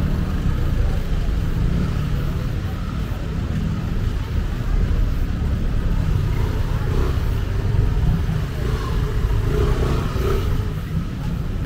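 Busy street traffic: motor vehicle engines running close by in a steady rumble, with voices of people mixed in.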